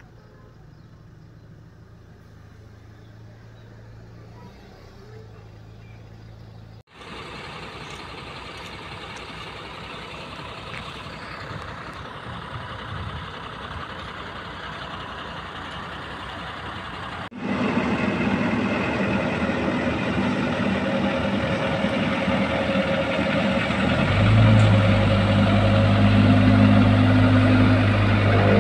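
Diesel engines of heavy road-building machinery running, in three separate clips. First a faint, steady idle of a JCB backhoe loader. From about seven seconds in, louder engine and traffic noise around a dump truck. From about seventeen seconds in, a loud, steady engine hum from the asphalt paving machines, with a deeper drone coming in near the end.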